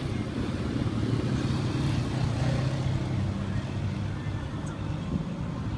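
Diesel truck engine idling close by, running steadily with a low, even sound.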